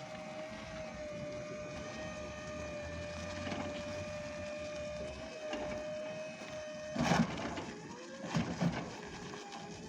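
Electric drive motor of an electro-hydraulic aerial work platform whining steadily as the machine drives forward. The whine stops about seven seconds in with a loud clunk, followed by a few more knocks a second and a half later.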